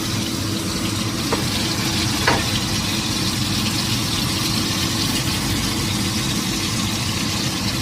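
Ribbonfish fillet rolls deep-frying in hot oil, sizzling steadily, with a steady low hum underneath. A light tap comes about two seconds in.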